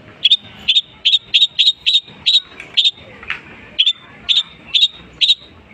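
Long-tailed shrike (cendet) calling: about a dozen short, sharp, high notes repeated roughly twice a second, with a brief break a little past halfway.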